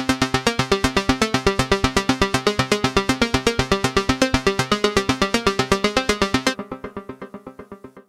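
Roland Juno-60 software synthesizer (Roland Cloud recreation) playing a plucky arpeggio preset: a fast, even run of short synth notes. About six and a half seconds in, the notes lose their brightness and fade away in dwindling repeats.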